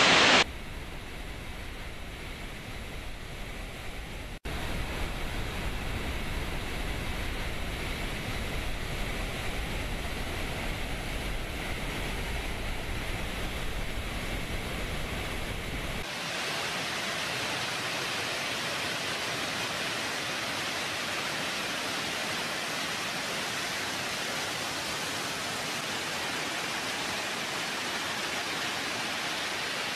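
Heavy water rushing out of dam spillways and outlet valves in a steady, noisy rush. It changes character abruptly about four seconds in and again about sixteen seconds in, deeper in the middle part and hissier near the end.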